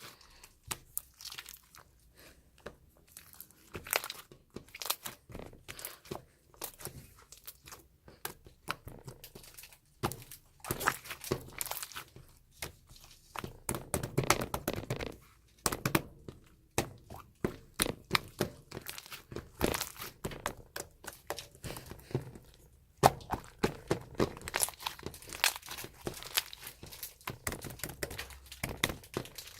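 Chewy slime being squeezed, pressed and stretched by hand, giving an irregular stream of small sticky clicks and pops that come thicker at times.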